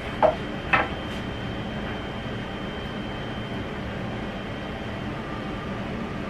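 Steady machine hum, with two short sharp sounds in the first second.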